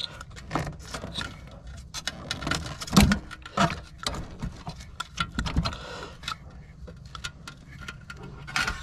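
Irregular metallic clinks and knocks from a strap-compressed steel rear coil spring and its ratchet-strap buckles being worked into the rear suspension of an Audi A6 C7. The loudest knock comes about three seconds in.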